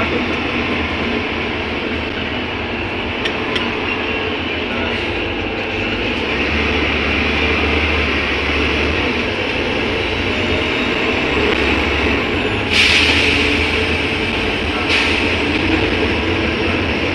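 Steady running noise inside a moving city bus: engine drone and road noise. A brief loud hiss comes about two-thirds of the way through, and a shorter one near the end.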